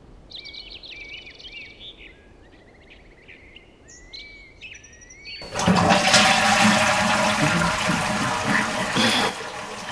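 Birds chirping faintly, then about five and a half seconds in a toilet flushes with a loud rush of water that drops away near the end.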